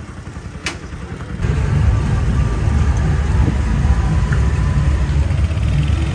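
Low, steady rumble of a moving vehicle ride, jumping up sharply about a second and a half in, with a single click just before.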